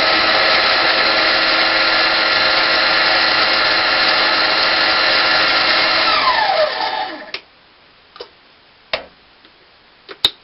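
Harbor Freight 7x10 mini lathe running at its finishing-cut speed of about 1100 RPM, its variable-speed DC motor and headstock gears giving a steady whine of several tones. About six seconds in it is switched off and the whine falls in pitch as the spindle coasts to a stop, followed by a few light clicks and knocks as the chuck guard is swung up.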